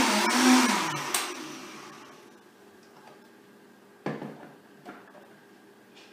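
Countertop blender motor winding down after being switched off, its pitch falling as the sound fades over about two seconds, with a click about a second in. About four seconds in, a knock as the jar is lifted off the blender base, then a lighter click.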